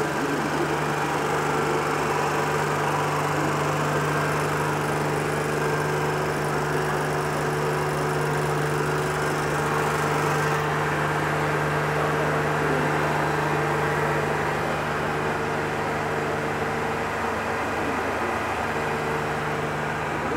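1993 Honda GL1500A Gold Wing Aspencade's flat-six engine idling steadily.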